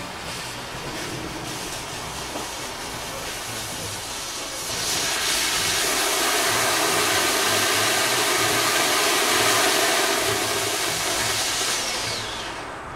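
Homemade aluminium-cased rocket motor test-fired: a sputtering fuse hisses, then about five seconds in the motor takes over with a louder, steady rushing hiss carrying a faint whistle. The hiss tapers off with a falling tone near the end. The burn is a long, weak one from an eroding nozzle.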